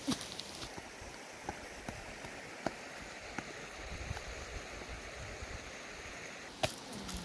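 Steady outdoor background rush with scattered light clicks, and a sharper knock near the end.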